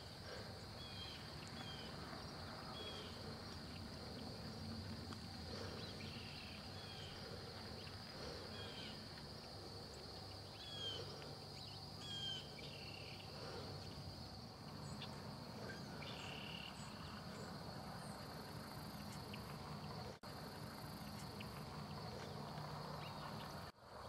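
Insect chorus: a steady high drone with short chirps scattered over it. It cuts out briefly twice near the end.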